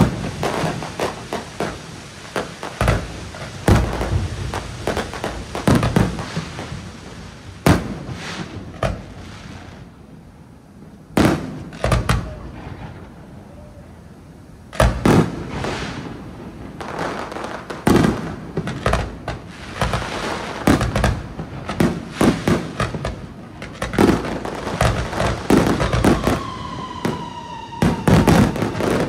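Fireworks display: aerial shells bursting one after another with sharp bangs and booms. The bangs thin out for a few seconds around the middle, then come thick and fast again. Near the end a whistle sounds for about three seconds, falling slightly in pitch, over the bangs.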